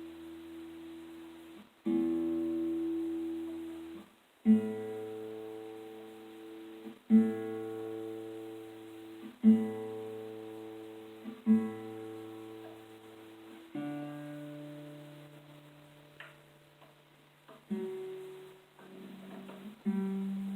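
Nylon-string classical guitar, fitted with new D'Addario EJ45LP strings, being tuned: single open strings plucked one at a time, about every two to three seconds, each left to ring out. The same note is repeated several times, then lower notes follow.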